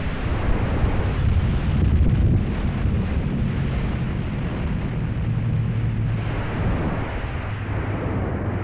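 Honda VFR750F's V4 engine running under way, heard through heavy wind rumble on the camera's internal microphone; a little louder around two seconds in, easing off near the end.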